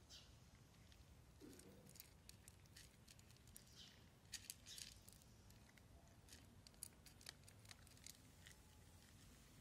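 Faint, irregular crunching and clicking of cats chewing dry kibble and nosing it against saucers.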